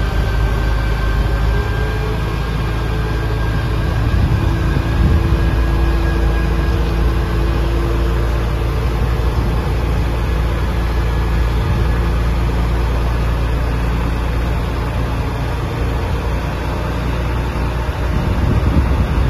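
Engine of a wheeled, self-propelled concrete boom pump running steadily as the machine drives, a low rumble throughout.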